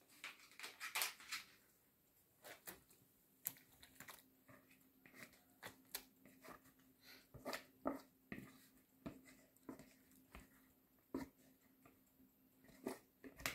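Faint, scattered scrapes and wet plops: a spoon scooping grated-potato batter out of a plastic bowl and dropping it into an oiled baking tray.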